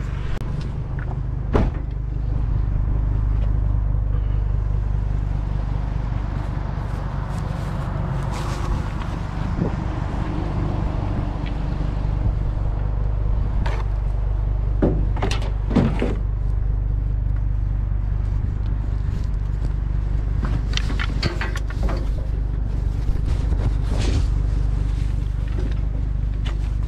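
Pickup truck engine idling steadily, with scattered knocks and clatters of scrap metal being handled in the truck bed. The clatter comes in clusters, the busiest a little past the middle.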